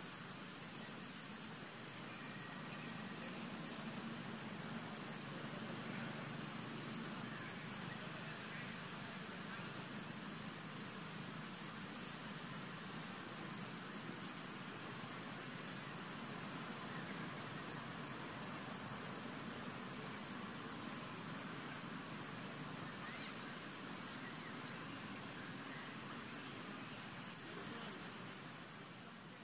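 Steady high-pitched drone of insects in the trees, one unbroken shrill tone that fades out near the end.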